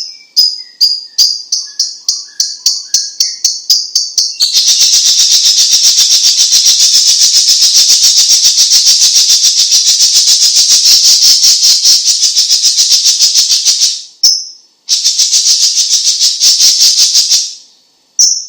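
Cucak cungkok leafbird (Chinese green leafbird) giving a high, dry rattling call. It starts as separate notes about four a second that speed up into a fast continuous trill lasting several seconds. The trill breaks off briefly, runs again for a few seconds, then stops, and a short note follows near the end.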